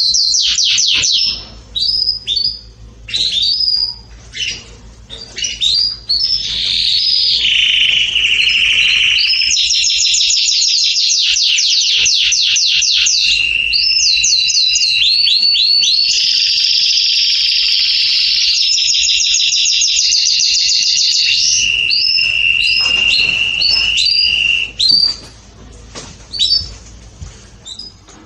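Black agate canary singing: rapid high trills and rolls of repeated notes. Short phrases broken by pauses at first give way to a long unbroken run of trills over a held steady note, and a few short bursts come near the end.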